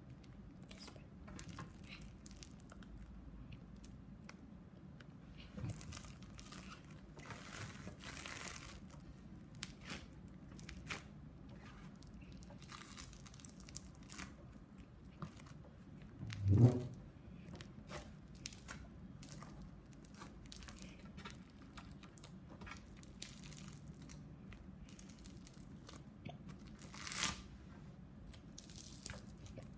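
Oosh crackle foam, a pink putty of tiny foam beads, crackling and tearing softly in scattered bursts as it is squeezed, pulled apart and kneaded by hand. One brief louder low sound comes about halfway through.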